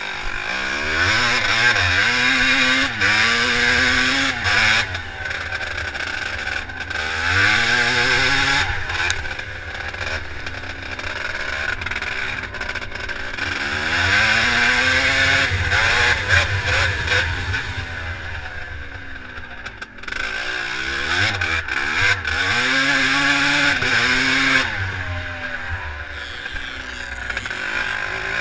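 Close-up motocross bike engine, a classic twinshock, revving hard with its pitch climbing and dropping back again and again, as under full acceleration through the gears. Wind rushes over the microphone, and the engine briefly eases off about two-thirds of the way through.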